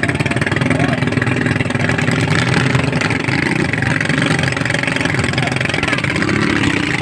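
Racing boat's engine running steadily, with faint voices mixed in.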